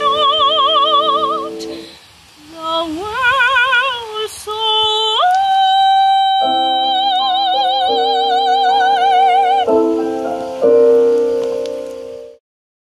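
A woman singing operatically with a wide vibrato over sustained piano chords, holding one long high note from about five seconds in. The music stops abruptly shortly before the end.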